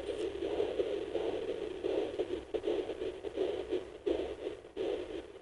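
Sonoline fetal Doppler's speaker playing a rhythmic, pulsing whoosh of placental blood flow, with the early fetal heartbeat masked just under it, the two sounds almost on top of each other.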